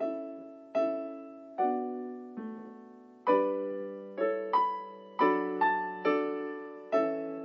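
Slow solo piano music: chords struck roughly once a second, coming a little quicker in the second half, each ringing and fading away.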